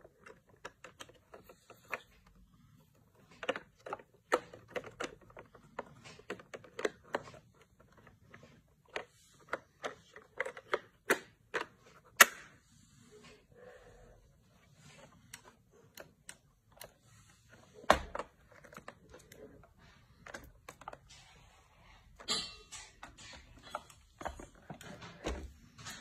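Irregular clicks and light knocks of a hand handling the hard plastic body of a Proscenic M7 Pro robot vacuum, with a sharper knock about twelve seconds in and a dull thump about eighteen seconds in. The robot itself is not running.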